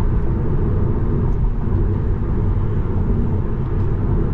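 Steady low road and tyre rumble inside an electric Tesla's cabin while it cruises at highway speed, with no engine note.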